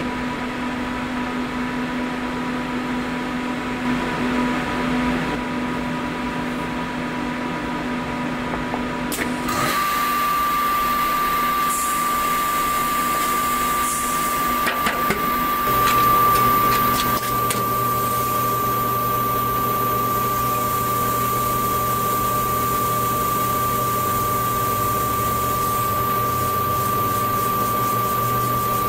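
Kodak Magnus 400 thermal CtP platesetter running through a plate load onto its imaging drum: a steady machine hum, then about ten seconds in a click and a steady high whine as the mechanism starts, with a lower hum joining about halfway.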